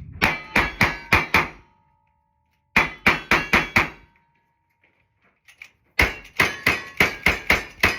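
Gunshots fired in quick strings at steel targets, each shot followed by a short metallic ring: five shots about a quarter second apart, then after a pause another five, then a longer string starting about six seconds in.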